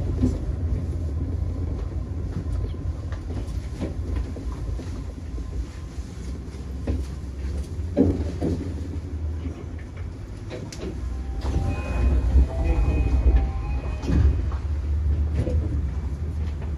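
Tokyo Monorail train heard from inside the front cab, pulling away from a station and running along its elevated guideway. A steady low rumble carries occasional knocks, and a faint high steady tone sounds for a couple of seconds about twelve seconds in.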